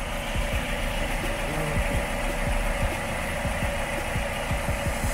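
Mazda 2 (Demio) engine idling steadily, heard from underneath the car, running on freshly changed oil while it is checked for leaks. Irregular low thumps run under the hum.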